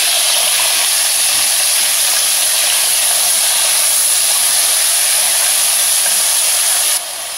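Cubed bottle gourd (lauki) sizzling loudly in hot oil in an aluminium pressure cooker as it is stirred with a wooden spoon: a steady frying hiss that drops off sharply shortly before the end.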